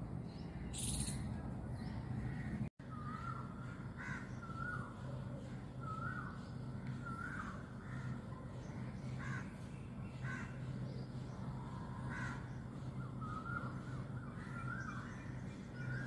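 Short animal calls repeated about once a second, each a brief note that rises and falls, starting about three seconds in just after a momentary dropout in the audio. A short hissy rustle comes about a second in.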